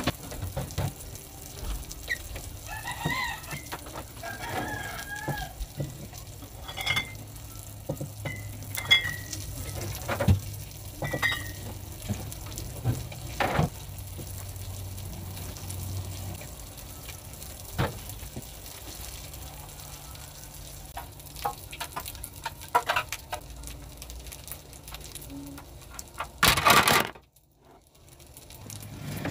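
Knocks and clatter of bottles and plastic refrigerator drawers being handled as a fridge is emptied and cleaned, with a rooster crowing a few seconds in. Near the end there is a loud burst of plastic handling close by, and then the sound cuts off suddenly.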